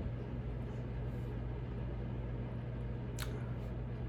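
Room tone: a steady low electrical or fan-like hum, with one short faint click about three seconds in.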